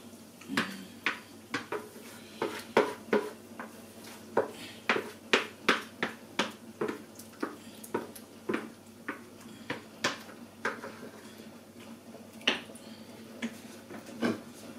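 A spoon scraping and knocking inside a plastic bowl as blended tomato and pepper puree is scraped out into a pot: a quick string of short scrapes and taps, about two a second, thinning to a few spaced knocks near the end.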